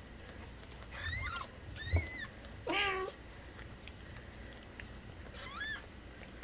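Newborn kittens mewing: short, high-pitched, arching cries about a second in, at two seconds and again near five and a half seconds, with a louder, lower cry about three seconds in. A brief sharp knock at about two seconds.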